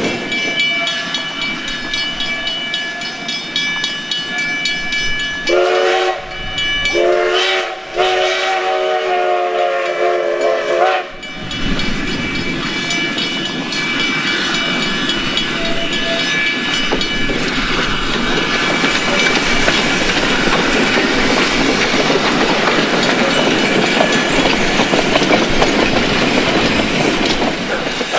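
Narrow-gauge Baldwin 2-6-0 steam locomotive and its passenger train: cars rolling over the rails, then the locomotive's steam whistle blown three times, short, longer, and longest. After that the locomotive's steady working sound fills the rest, growing a little louder near the end.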